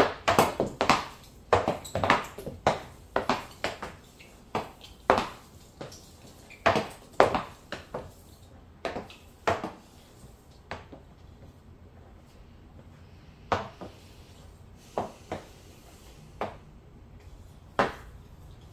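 Hockey stick blade knocking a puck back and forth in stickhandling: a quick run of sharp taps, two or three a second, that thins out to occasional single taps after about halfway.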